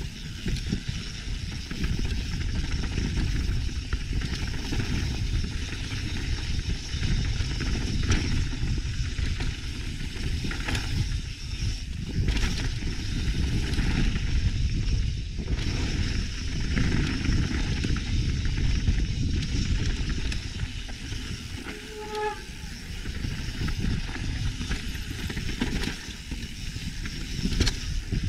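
Mountain bike rolling fast down a dirt and rock trail: wind rushing over the camera microphone and the tyres crunching over the ground, with scattered knocks and rattles of the bike over bumps.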